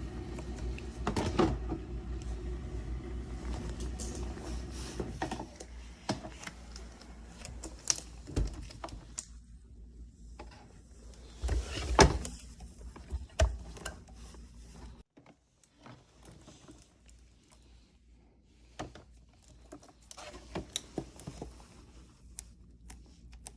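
Scattered clicks and knocks of plastic parts being handled as a dishwasher's vent and fan assembly is twisted loose and taken apart.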